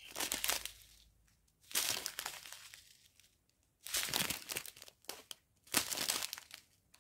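Small plastic sachets of round diamond-painting drills crinkling as they are handled, in four bursts about two seconds apart.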